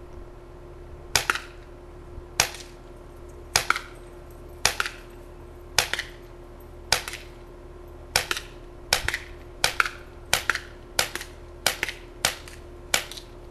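Heckler & Koch USP CO2 non-blowback airsoft pistol firing about fourteen single shots, each a sharp pop. They come about one a second at first and speed up to nearly two a second in the second half.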